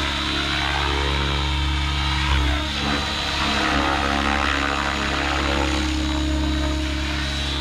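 T-REX 700 radio-controlled helicopter in flight, its rotor and drive running with a steady hum and whine. About two and a half seconds in, the pitch sweeps briefly downward.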